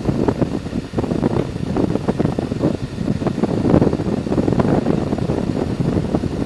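Wind buffeting the microphone on a Harley-Davidson Electra Glide at road speed: a loud, uneven rush, with the motorcycle's running noise underneath.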